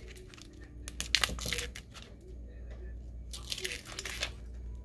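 Adhesive craft vinyl being peeled off its backing with a weeding tool, the crumpled waste scraps crinkling in the hand. It comes in short rustling bursts, the loudest about a second in and another around three and a half seconds.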